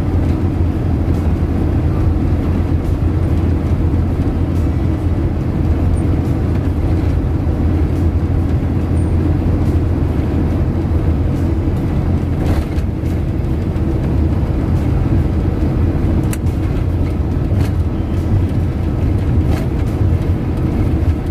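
Car driving at speed on a highway: a steady low rumble of road and engine noise that holds even throughout.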